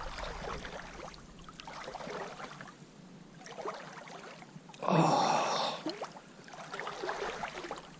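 Water splashing and lapping around a swimmer, with his breathing close by and one loud breath about five seconds in.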